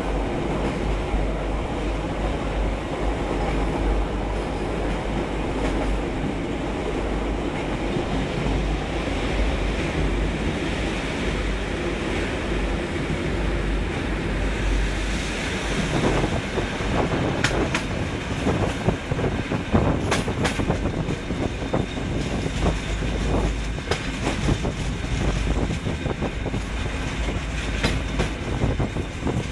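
Train 1395ra running at speed, heard from inside the car: a steady rumble and rattle of wheels on the track. About halfway in, the sound turns harsher, with many sharp knocks and clatter.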